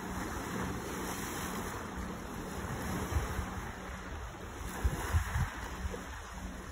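Small waves washing onto a pebble beach as a steady rush, with wind buffeting the microphone in low gusts, strongest about five seconds in.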